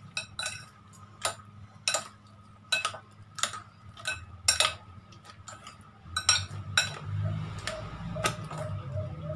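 Metal fork and spoon clinking against a glass bowl while an eggplant and okra salad is mixed, in sharp, irregular clinks one or two a second. About two-thirds of the way in, a low rumble joins in under the clinks.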